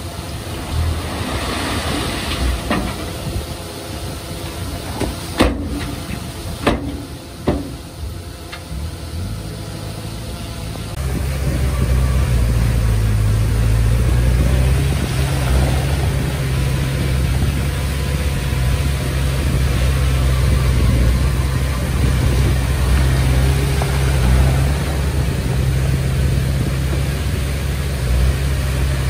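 Komatsu D20P bulldozer's diesel engine running, with a few sharp knocks between about five and seven and a half seconds in. From about eleven seconds the engine sound turns louder and deeper and stays that way.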